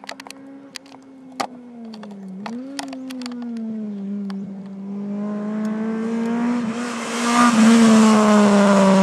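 Tuned Mitsubishi Colt MIVEC hatchback driving toward and past, its engine note growing steadily louder as it nears and loudest as it goes by near the end. A few sharp clicks in the first seconds.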